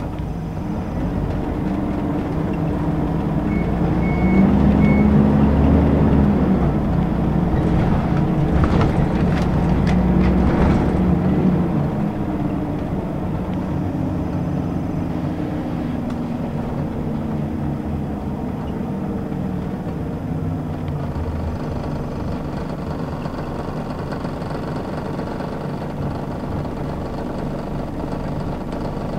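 Inside a Scania L94UB city bus with a ZF automatic gearbox: the diesel engine pulls away, its pitch rising and loudest about four to eleven seconds in, then settles into a steady run as the bus cruises. Three short high beeps sound about four seconds in.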